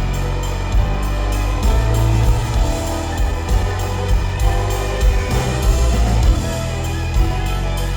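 Country band playing an instrumental passage, with guitar and drums over a steady beat and a strong bass line.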